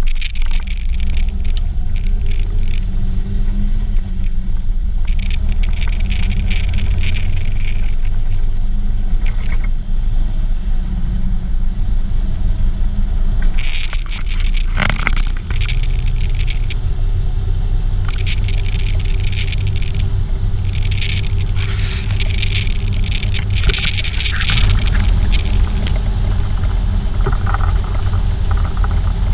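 Jeep Wrangler on the move: a steady low rumble of engine, tyres and wind, broken by intermittent bursts of scraping, hissing noise.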